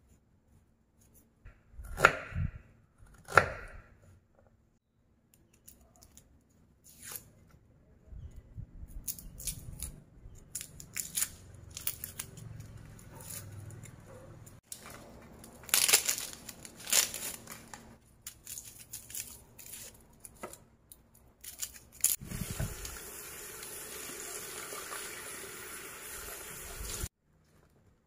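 Paring knife peeling ginger and garlic cloves by hand: the blade scrapes and papery skins tear and rustle in short strokes, with two sharp knocks of the knife on the cutting board near the start. A steady hiss runs for several seconds near the end and cuts off suddenly.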